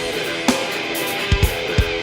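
Background rock music with guitar and a drum beat.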